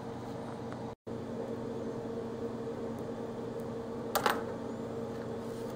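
Steady electrical hum and room noise, cut by a brief dropout about a second in, with a single sharp click about four seconds in as small laptop parts are handled with a tool.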